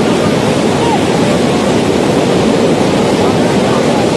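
Muddy flash-flood torrent rushing through a rocky channel: a loud, steady roar of water with no breaks.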